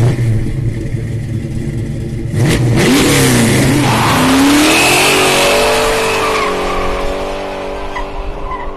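Car engine running and revving: its pitch dips and climbs about three seconds in, then holds steadier and eases off near the end.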